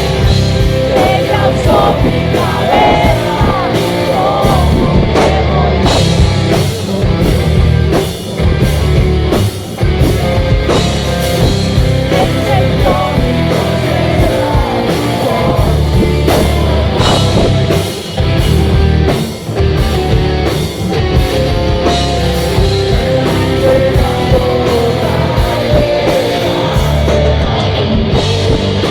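Rock band playing live and loud, with guitars and drums and a voice singing over them.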